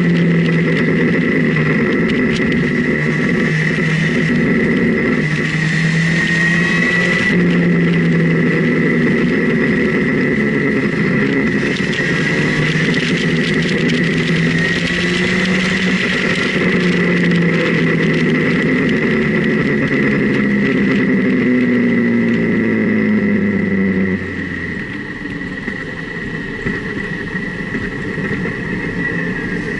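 Motorcycle engine heard from on board while riding, its note rising and falling with the throttle through the bends, over wind rushing past the microphone and a steady high whine. Toward the end the note falls away and the sound drops as the throttle is closed.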